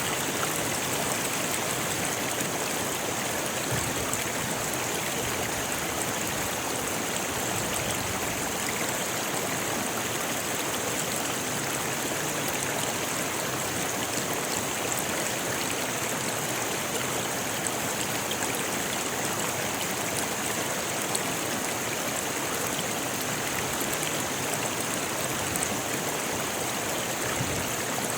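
Rocky river rushing steadily over stones, an even, unbroken water noise.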